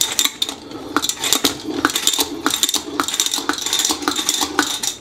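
Irregular light clinking and clattering of small hard objects, many short clicks in quick succession.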